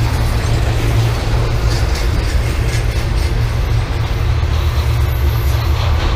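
Westbound BNSF intermodal freight train rolling past: a steady, loud rumble of the cars and their wheels on the rails.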